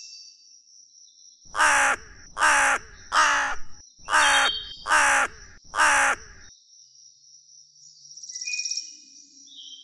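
A crow cawing six times in a quick, even series, then falling silent; faint chirps from other birds follow near the end.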